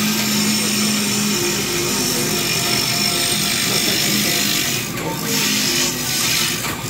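Bicycle-driven wood lathe with its spindle spinning fast while a stepper-fed CNC cutting tool shaves the turning workpiece, making a steady cutting noise. A steady low hum runs under it and stops about a second and a half in.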